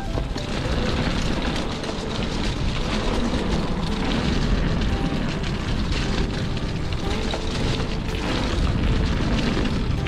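Wind buffeting the camera microphone and tyres rolling over dirt singletrack as a mountain bike rides along: a steady, heavy rumble.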